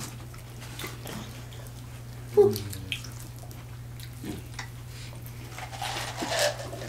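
Wet mukbang eating sounds: chewing and picking at boiled seafood and corn, with scattered small clicks, over a steady low hum. A short, loud vocal sound comes about two and a half seconds in, and there is a slurp-like rush near the end as a cup is drunk from.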